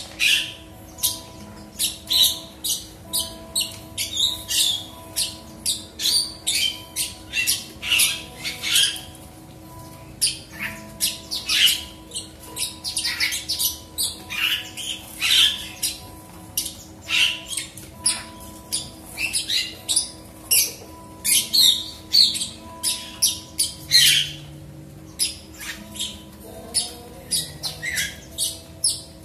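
Caged Horsfield's bush lark (branjangan) singing: a long, loud run of short chirping notes, a few each second, with a brief pause about ten seconds in.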